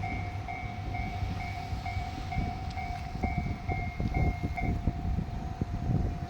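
Japanese railway level-crossing warning bell ringing in a steady rapid pulse, about two strokes a second, over the low rumble and wheel clatter of a passing diesel train. The bell's higher tone drops out about two-thirds of the way through, and a steady lower tone carries on.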